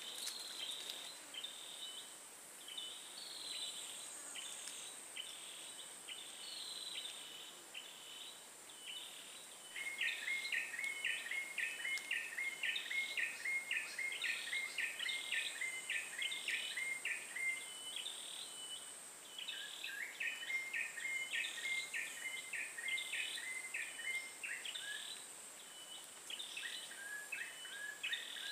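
Swamp ambience of wild creatures: a steady high insect drone with short repeated chirping calls over it. The chirps become a fast, regular series of about three a second from about ten seconds in, pause, and start again around twenty seconds.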